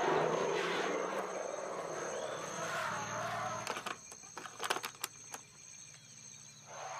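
Insects buzzing steadily, with a loud rough noise over the first three seconds or so and a few sharp knocks about four to five seconds in, over a low steady hum.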